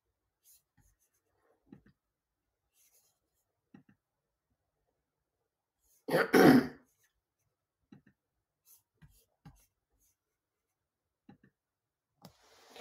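A person clearing the throat with two quick coughs about six seconds in, with faint mouth or mic clicks around it and a soft breath near the end.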